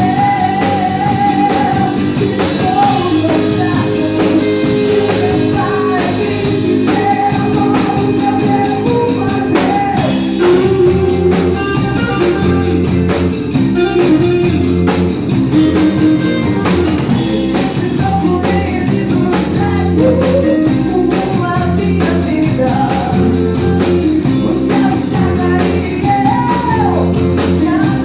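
Band playing a rock song live, with guitar, a steady beat and tambourine, and a singing voice at times.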